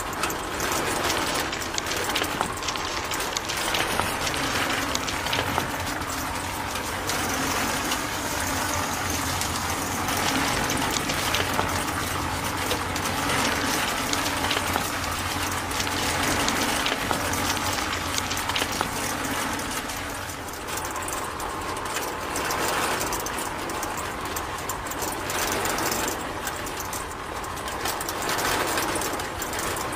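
Small electric motor of a miniature model sand-sifting machine running steadily, driving a bucket conveyor and a shaking mesh sieve, with a low hum under the hiss of sand pouring through the screen.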